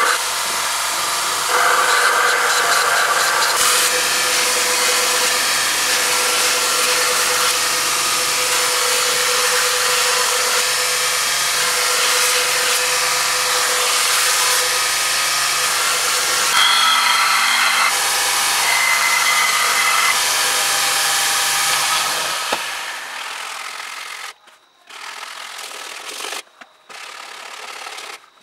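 Belt grinder on a Scheppach BGS 700 combination grinder grinding a steel knife blank: the steady hiss of the abrasive belt on steel over the motor's hum, with a few higher squealing tones about two-thirds of the way through. Near the end the grinding fades away, leaving a few shorter, quieter stretches of machine noise.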